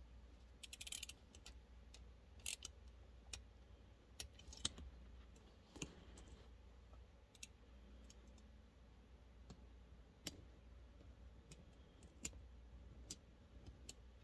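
Near silence over a low steady hum, broken by faint, sharp clicks and taps scattered irregularly, like small hard objects being handled.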